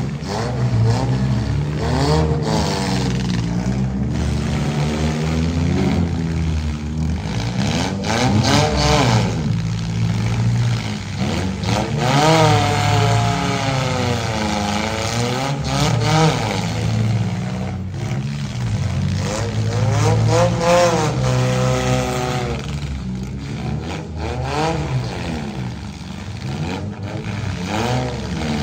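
Engines of several compact demolition derby cars revving up and down over and over, their pitch rising and falling every second or two over a steady low rumble.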